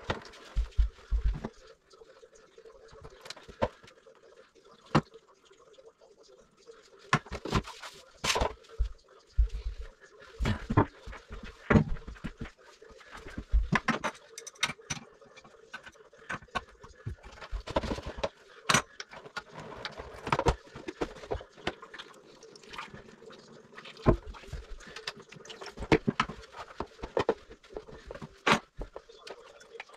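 Water being bailed out of a toilet bowl into a plastic basin: irregular splashes and dribbles with knocks and clatter of the basin, over a faint steady hum.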